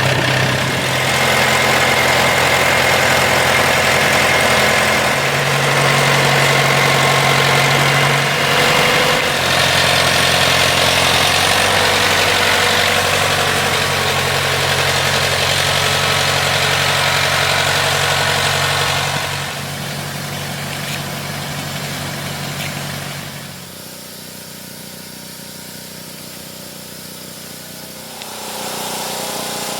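ATV engine idling steadily, its pitch stepping up and down a few times. It drops away about twenty seconds in and gets quieter again a few seconds later.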